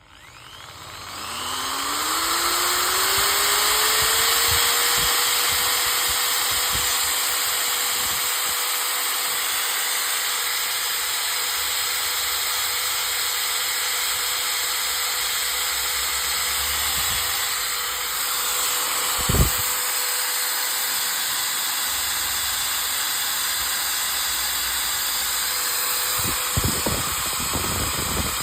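INCO 750 W 13 mm corded electric drill spinning up from standstill over about three seconds, its whine rising in pitch, then running steadily at constant speed. A sharp knock comes about two-thirds of the way through, and a few lighter knocks near the end.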